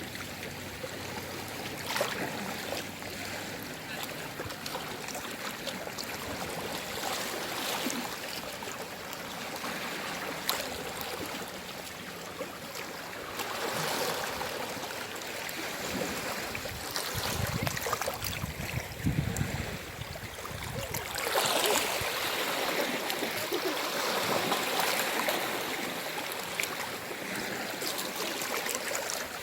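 Sea waves washing onto the shore: a steady rush of surf that swells and ebbs, with a deeper rumble partway through.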